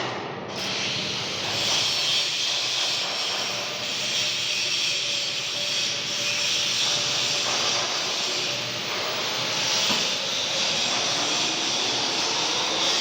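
Metal lathe running, with a steady machining hiss.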